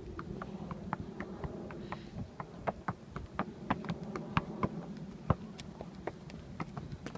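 Horse's hooves knocking on the loose wooden slats of a temporary board road at a walk: a string of irregular sharp knocks over a steady low hum.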